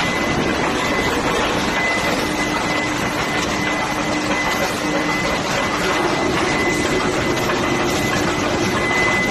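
A vibration test table running under a 3000 kVA oil-filled transformer that is strapped down for a transport vibration test: a steady mechanical noise with a faint high whine in it.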